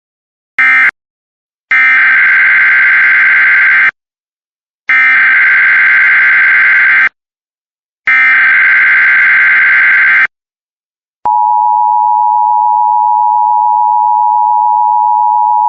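Emergency Alert System signalling: the last short burst of the previous alert's end-of-message data code, then three SAME header data bursts of screeching digital tones, each about two seconds long with about a second between them. About 11 seconds in, the steady two-tone EAS attention signal begins and holds.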